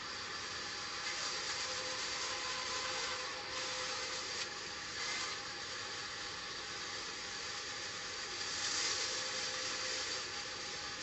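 Large band saw running steadily as planks are fed through its blade and ripped; the noise grows louder in stretches while a board is being cut.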